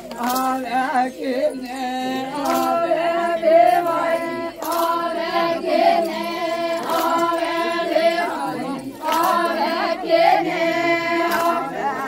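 A group of women singing a traditional Adivasi wedding song together, their voices moving as one line in long held notes, phrase after phrase.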